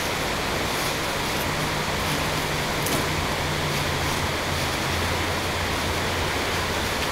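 Steady hiss with a faint low hum beneath it.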